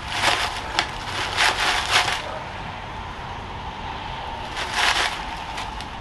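Gritty bonsai soil crunching and scraping as it is pressed and worked into a plastic pot around a fir's roots, in several short bursts in the first two seconds and again about five seconds in.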